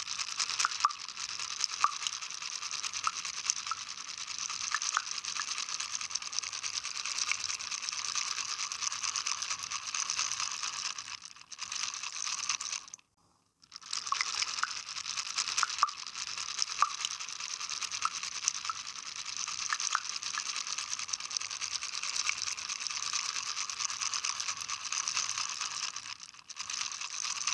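Close-miked water play: a dense crackling fizz made of many tiny clicks and splashes. It cuts out for about a second midway, then starts again.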